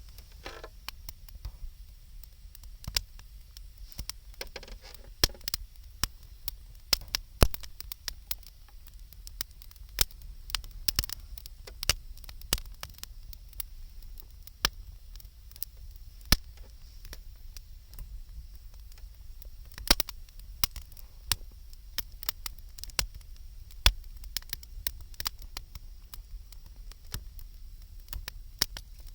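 Wood campfire crackling, with irregular sharp pops and snaps of burning wood.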